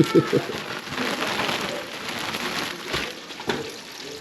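White bass fillets frying in hot oil: a steady sizzling hiss, with a few sharp knocks at the start and a couple of clicks about three seconds in.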